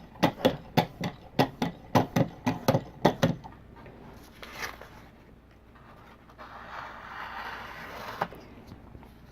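Strop on a guided knife-sharpening system drawn in quick, even strokes across a knife edge, about four a second, then a single stroke and a longer, softer scrape near the end.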